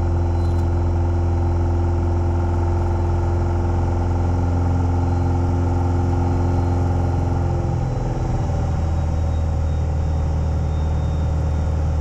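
Light aircraft's piston engine and propeller running steadily in flight, heard inside the cabin as a constant loud drone. The engine note changes slightly about eight seconds in.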